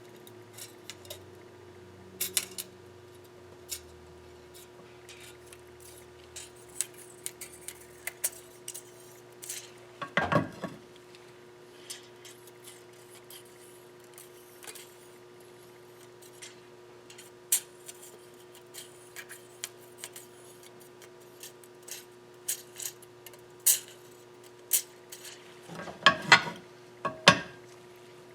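Scattered metal clicks and clinks of a steel straight edge and feeler gauges being handled on a KA24DE cylinder head deck while its flatness is checked. There are louder clatters about ten seconds in and twice near the end, over a faint steady hum.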